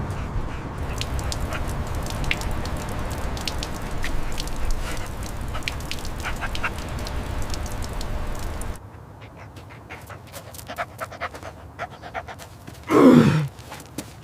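A dog panting hard over a low rumbling noise, with quick irregular clicks. About nine seconds in, the rumble cuts off abruptly. Near the end comes one short, loud sound that falls steeply in pitch.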